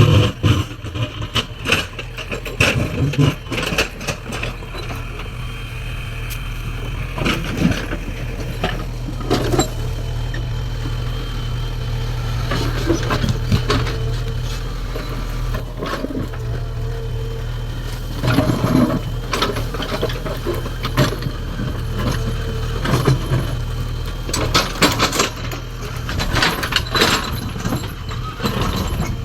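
Diesel engine of a JCB 3DX backhoe loader running steadily under work, with irregular knocks and scraping as the bucket digs into stone; the knocking comes thickest in two spells, just past halfway and again near the end.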